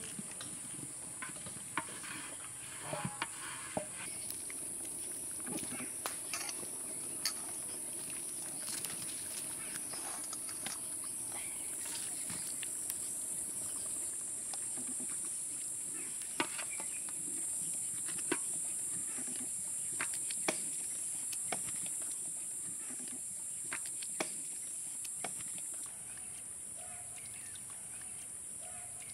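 Biryani rice boiling in an aluminium pot over an outdoor fire, with scattered small clicks and taps, over a steady high-pitched insect drone.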